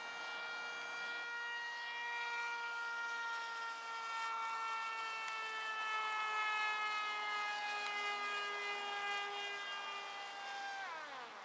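Motor and propeller of a radio-controlled flying wing whining at a steady high pitch that sags slowly, then winds down quickly near the end.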